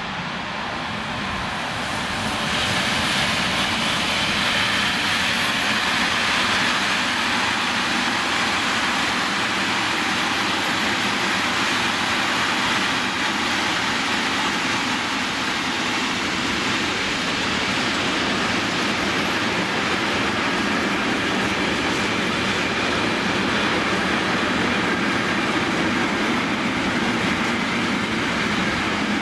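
Container freight train, hauled by a Class 185 electric locomotive, passing close by: steady rolling noise of its wheels on the rails as the long string of container wagons goes past. The sound grows over the first couple of seconds, then holds steady.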